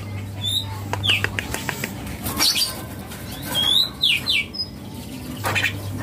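Songbirds chirping, short high whistled chirps several times, with a young Javan myna fluttering in its wire cage.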